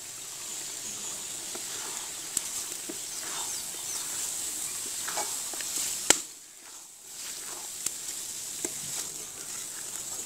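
Pointed gourds frying in oil and onion-spice masala in a large metal karai: a steady sizzle with scattered clicks and scrapes of a wooden spatula stirring them. A sharp knock comes a little after six seconds in, and the sizzle briefly drops away after it.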